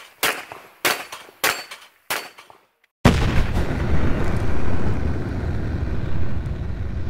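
Four Glock pistol shots about 0.6 s apart, fired at a rack of steel plates. About three seconds in, a steady deep whooshing sound effect starts abruptly, the sound of an animated flying-bullet logo.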